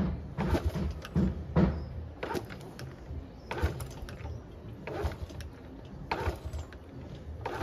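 Honda C70 Cub's 72 cc single-cylinder four-stroke being kick-started on full choke: the kick-start lever is pushed down about once a second and the engine turns over with each kick but does not fire.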